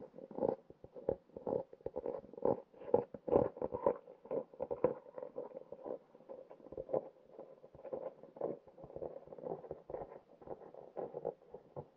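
Muffled underwater noise picked up under lake ice: a run of irregular clicks and knocks, several a second, some louder than others.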